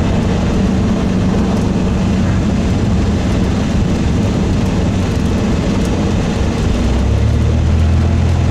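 A Cessna 172's four-cylinder Lycoming engine and propeller running steadily, heard inside the cabin. About seven seconds in, the engine note drops lower and grows slightly louder.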